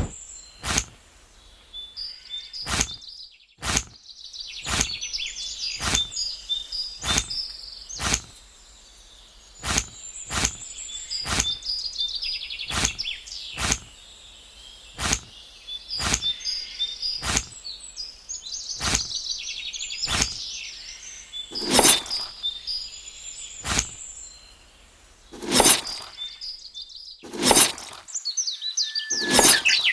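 Songbirds chirping steadily, with sharp knocks or taps at an even pace of about one a second.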